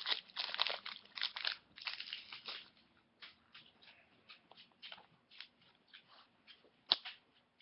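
Hockey card pack wrapper crinkling and rustling as it is handled and opened for about two and a half seconds, then soft scattered ticks of cards being handled, with one sharper click near the end.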